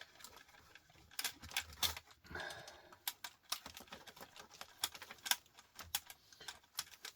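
Irregular sharp clicks and clacks of plastic and metal parts as a DVD drive is handled and pried open, with a short scrape between about two and three seconds in.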